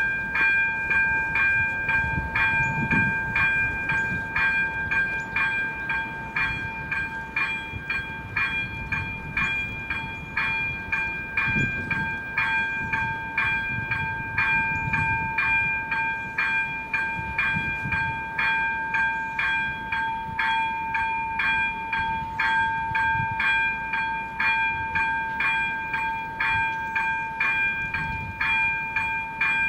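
ZV-02 level-crossing warning bell ringing in a steady even rhythm, about two strikes a second, each strike leaving a ringing tone between strikes. It is the crossing's active warning that a train is approaching, and faint low rumbles come and go underneath.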